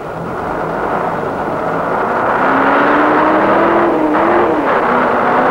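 A bus engine running and revving, growing louder over the first two seconds, its pitch climbing slowly and then dropping back about four and a half seconds in.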